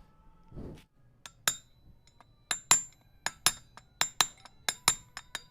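Hammer tapping a new ball bearing into the rear CVT pulley of a Yamaha NMAX to drive it home: about a dozen sharp metal-on-metal taps with a ringing tone, often in quick pairs, starting about a second in.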